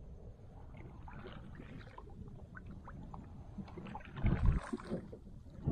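Water lapping and dripping with small ticks around a fishing kayak, then a kayak paddle stroke about four seconds in: the loudest sound, a splash with a low thump.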